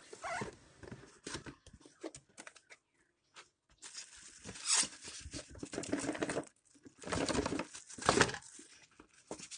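Cardboard box and plastic packing being handled during unboxing: irregular rustling, scraping and crinkling in bursts, loudest about halfway through and again about a second before the end.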